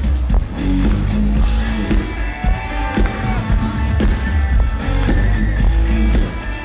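Live band playing loud amplified rock music, led by electric bass and a drum kit, with no vocals.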